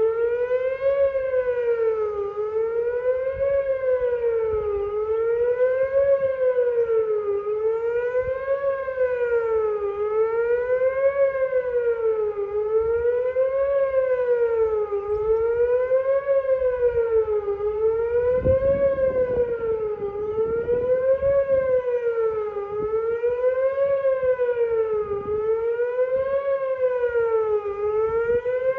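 Whelen 2900 electronic outdoor warning sirens sounding a test: a continuous wail whose pitch sweeps up and down about every two and a half seconds. A low rumble comes in under it about two-thirds of the way through.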